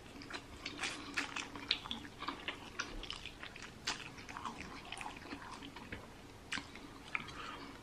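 Close-up eating sounds of a mouthful of spicy instant noodles being chewed: many small, irregular wet mouth clicks and smacks.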